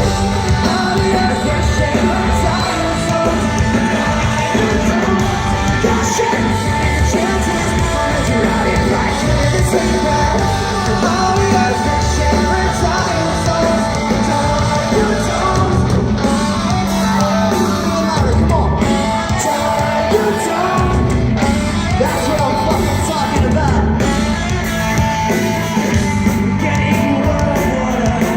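Pop-punk band playing live, with a lead singer over the band, loud and continuous.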